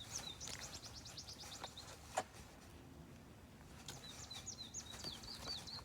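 A small bird chirping faintly: a fast run of short high notes at the start, then another string of short downslurred chirps from about four seconds in. A single sharp click sounds about two seconds in.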